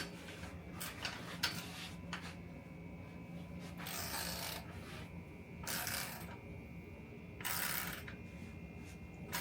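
Quiet handling noises of bike parts and tools: a few light clicks, then three short scraping or rustling sounds, each about half a second long.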